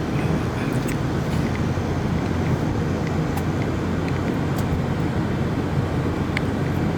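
Steady low rumble of vehicle or road-traffic noise, with a few faint ticks scattered through it.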